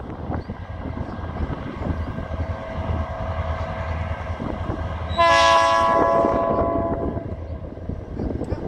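Approaching coal train's diesel locomotives with a steady low engine rumble. About five seconds in, the lead locomotive sounds its horn: one loud blast, a chord of several notes lasting under two seconds.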